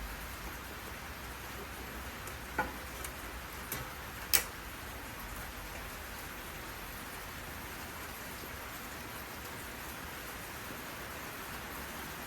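A few light clicks of screws and a screwdriver being handled while the fan cover's screws come out, the sharpest about four seconds in, over a steady hiss.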